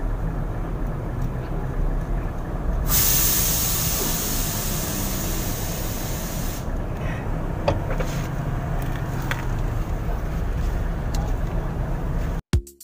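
Loud hiss of compressed air escaping for about four seconds, starting about three seconds in, over a steady low workshop rumble. A few light metal clicks follow, and music with a beat starts near the end.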